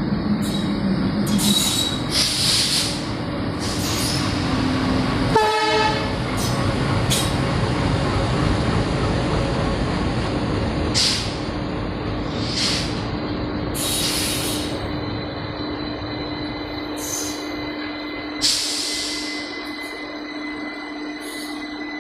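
Indian Railways electric train running through a station: continuous rumble of wheels on rail, with repeated short high-pitched squeals and hisses. A brief sharp blast about five seconds in, and the sound eases off toward the end.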